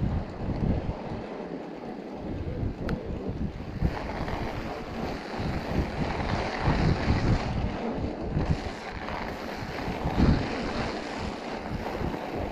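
Wind buffeting the microphone in gusts, the strongest about ten seconds in, over the steady hiss and crunch of mountain bike tyres rolling through snow with a thin crust of ice.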